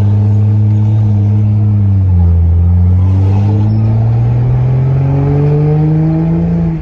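BMW F10's engine and exhaust under acceleration with the gearbox in drive. The pitch dips about two seconds in, as at an upshift, then climbs steadily, and the sound drops off sharply at the end as the throttle is lifted.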